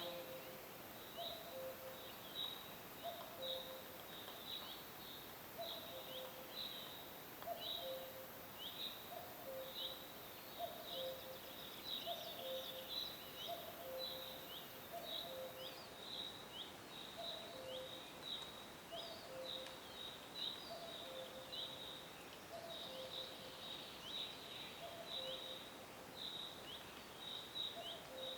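Birds calling: quick high chirps repeat about twice a second, over a low two-note call, a higher note then a lower one, that comes back roughly every second and a half, against a faint steady hiss.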